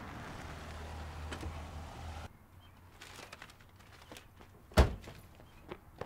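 A sedan's engine running as the car pulls up, cutting off abruptly a little over two seconds in. Then a car door is slammed shut with one loud thump, followed by a couple of lighter clicks.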